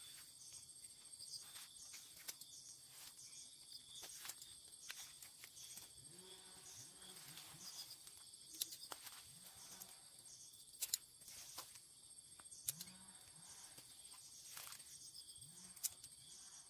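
Faint, steady high chirring of insects, with a few sharp clicks and some faint low calls.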